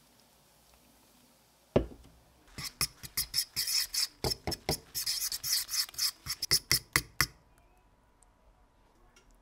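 A metal fork whisking beer batter in a bowl: quick scraping, clinking strokes against the bowl for about five seconds, stopping abruptly. A single sharp knock comes just before the mixing starts.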